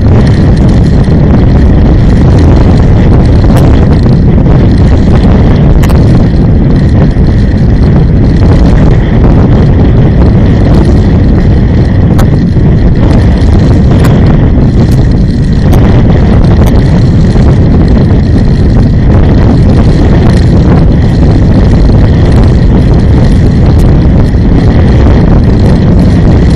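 Loud, steady low rumble of a vehicle driving along a road: engine, tyre and wind noise picked up by a camera riding on the vehicle.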